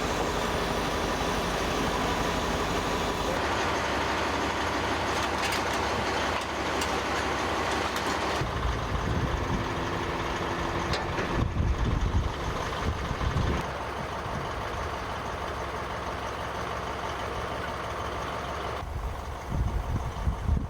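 Heavy truck engines running, with a few clanks; the sound changes abruptly about every five seconds.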